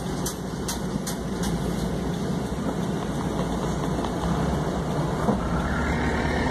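Truck engine running steadily at low speed over a steady hiss from a wet road, with a few light ticks in the first second and a half.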